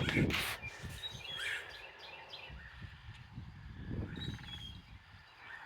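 Songbirds singing outdoors: short chirps and whistles, with a quick rattling trill about three seconds in. A brief noisy thump at the very start is the loudest sound, and there is a low rumble underneath.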